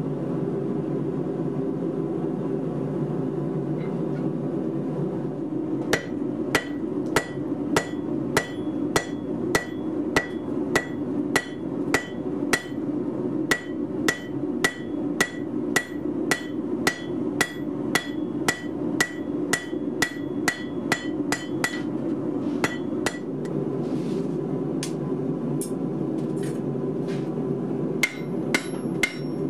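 Hand hammer striking a red-hot steel block on an anvil, about two blows a second with a ring on each blow, over a steady low rush. The blows stop for a few seconds near the end, then start again.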